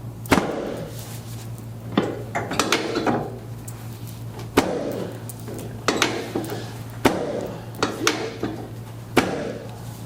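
Chiropractic adjustment thrusts on a patient lying face down on the treatment table: a series of about seven sharp whacks, one every one to two and a half seconds.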